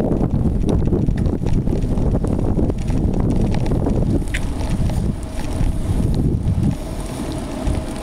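Wind buffeting the microphone while a mountain bike is ridden, a loud, uneven low rumble with scattered light clicks. It eases a little about five seconds in and again near the end.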